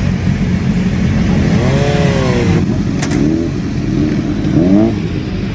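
Motorcycle engines idling together in a steady low rumble, with about three quick throttle blips whose pitch rises and falls.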